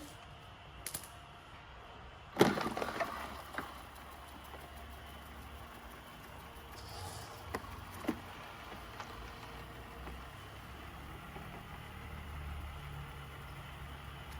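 Robot vacuum running with a low steady hum. A sharp knock with a short rattle comes about two seconds in, and two faint clicks follow near the middle.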